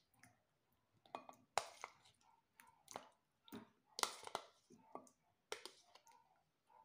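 Mussels, squid rings and shrimp tipped from a plastic tub into a bowl of thin batter: a faint, irregular run of wet plops and clicks as the pieces drop in and the shells knock against the tub.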